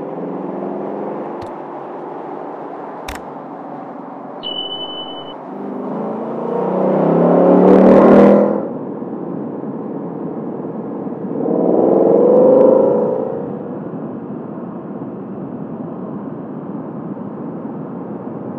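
Ford Mustang GT's 5.0-litre V8 exhaust while driving, swelling twice as the car accelerates. The first swell rises in pitch and drops off sharply.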